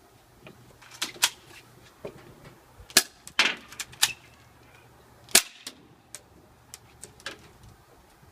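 Airsoft Colt 1911 replica pistol firing a string of shots: sharp cracks in quick pairs and singles, loudest about a second in, at three seconds and past five seconds, with fainter clicks between.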